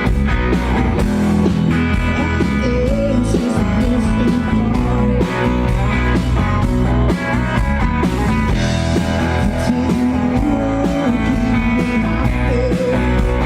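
Loud amplified live rock band playing, with guitar to the fore and a melody line running over steady chords.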